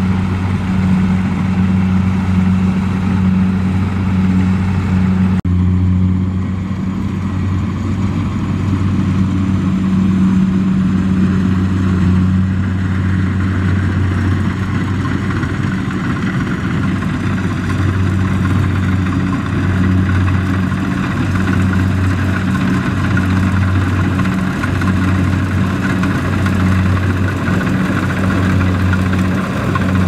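Kubota DC-70 Plus rice combine harvester's diesel engine and machinery running at a steady drone as it cuts rice, with a brief break about five seconds in.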